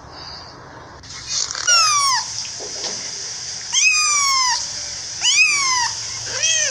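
Kitten meowing four times, high thin cries that fall in pitch, about one every one and a half to two seconds, the last one shorter, over a steady background hiss.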